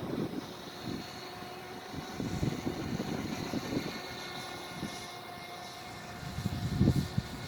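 Brushless RC boat motor running with a steady high whine, over an uneven low rumble that swells and fades.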